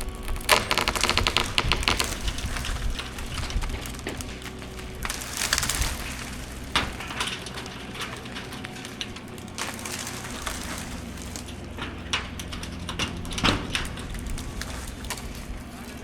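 Wood cracking and snapping, with a fast run of clicks early on and a rustling burst around five seconds, then scattered sharp cracks, over a low steady hum.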